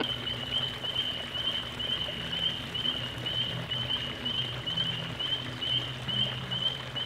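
Evening pond chorus of frogs and night insects: a steady, high, pulsing trill over lower croaking calls, with a faint wash of trickling water.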